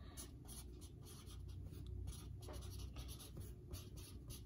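Felt tip of a Prismacolor marker rubbing across mixed-media paper in many short, faint strokes as letters are written.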